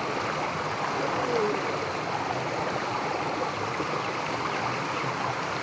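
Muddy pond water gushing out of a drain outlet under good pressure and churning into a shallow concrete channel: a steady rushing and splashing of water.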